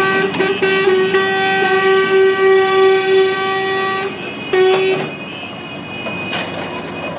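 A horn blowing one steady note: a few short toots, then a long blast of about three seconds, and one more short toot.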